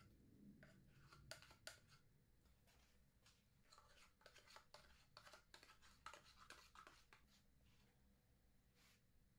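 Faint scraping and clicking of a metal spoon scooping apple compote out of small plastic pots into a glass bowl, a quick run of soft scrapes that thins out near the end.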